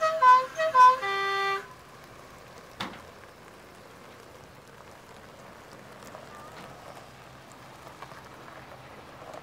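The last notes of a tune of short, bright, stepping notes, ending on one held note about a second and a half in. A faint steady hiss follows, with one sharp click near three seconds.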